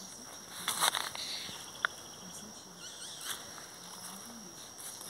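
Steady high-pitched insect drone in the open air, with a short rustle a little under a second in and a sharp click near two seconds in.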